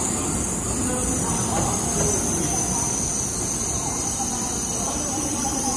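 A Tokaido Shinkansen bullet train pulling into the platform: a steady low rumble with a high hiss over it, and faint voices in the background.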